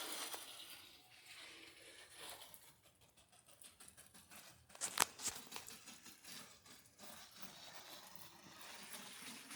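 Faint hiss of a hand-pumped garden sprayer spraying bleach solution, with a sharp click about five seconds in.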